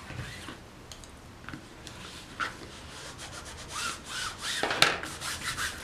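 Glued covering paper being rubbed and pressed flat onto a cardboard box to push out the air. It makes a series of short rustling scrapes, sparse at first and busier in the last two seconds, with one sharp tap about a second before the end.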